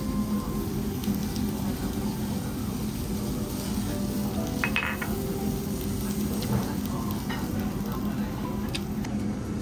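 Beef sizzling on a tabletop yakiniku grill, a steady hiss, with one clink of chopsticks against a ceramic dish about five seconds in.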